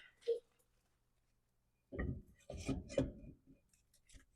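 Metal parts of a Toyota Yaris rear drum brake assembly scraping and rubbing as they are worked by hand, in a cluster of rough, irregular strokes about halfway through, with a few light knocks near the end.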